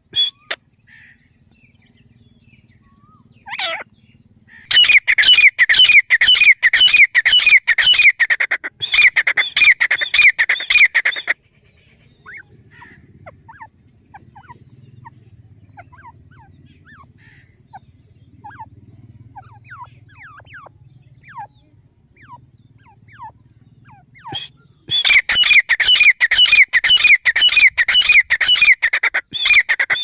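Female grey francolin calling: a long run of loud, rapidly repeated notes from about five to eleven seconds in, then, after a stretch of faint scattered chirps, a second run starting about twenty-five seconds in.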